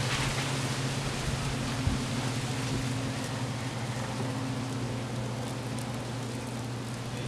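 Paper fast-food bag burning in a metal fire pit: a steady hiss of flames with faint crackles, over a steady low hum.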